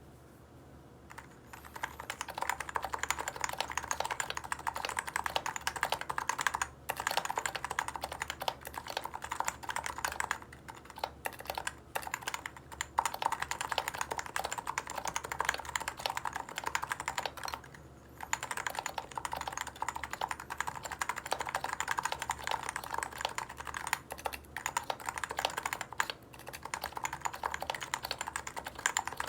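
Typing on a Leopold FC660C keyboard with silenced Topre switches, O-rings removed and lubed with Krytox 103: a fast, steady stream of keystrokes that starts about a second and a half in, with a few brief pauses.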